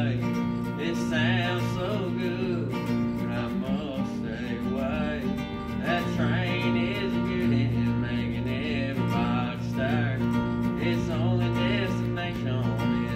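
Acoustic guitar strummed in a steady country rhythm, played live.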